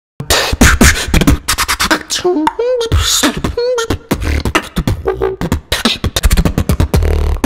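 Beatboxing into a handheld microphone: a fast, dense run of mouth-made kick, snare and hi-hat sounds that starts suddenly just after the start, with short wavering hummed notes mixed in near the middle and a deep held bass sound near the end.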